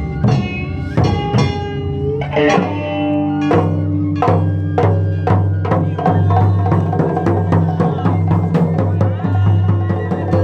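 Live music from a wadaiko and shamisen ensemble: drums struck in a steady beat under plucked shamisen notes, with a deep sustained bass tone joining about two and a half seconds in.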